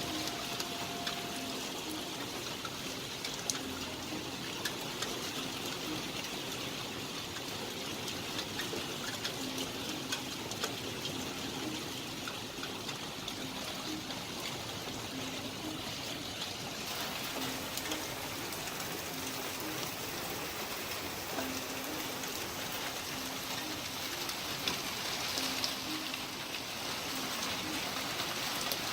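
Heavy rain falling steadily, a constant hiss with many scattered sharp drip and splash ticks.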